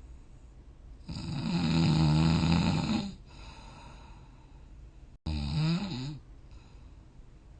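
A sleeping person snoring: a loud snore of about two seconds starting about a second in, then a shorter one about five seconds in, with faint breathing between.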